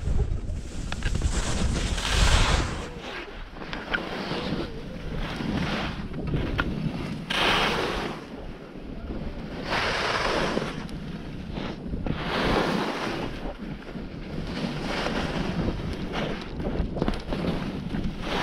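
Skis scraping and carving across snow through a series of turns, each turn a swelling hiss about every two seconds. Wind buffets the microphone, most heavily in the first few seconds.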